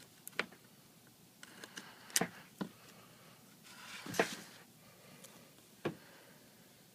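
Faint handling sounds of two-sided adhesive tape being laid along the edge of an iPad's frame: a handful of light clicks and taps, with two short rasps, one about a second and a half in and one around four seconds in.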